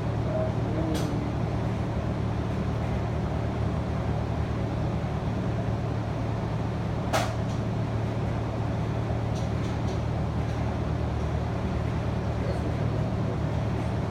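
Steady low mechanical hum, with a faint click about a second in and a sharper click about seven seconds in.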